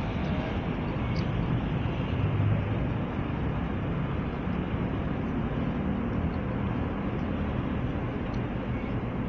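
Steady low rumbling room noise in a large hall, with no clear single event.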